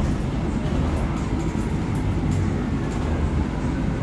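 Cabin of a Bustech ZDI city bus under way: a steady low rumble of the engine and road, with a few short clicks and rattles from the cabin fittings.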